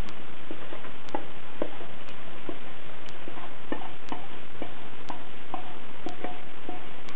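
Wooden spoon scraping and knocking sofrito out of a nonstick frying pan into a pot of soup: irregular light knocks and clicks over a steady hiss. A separate sharp tick sounds about once a second.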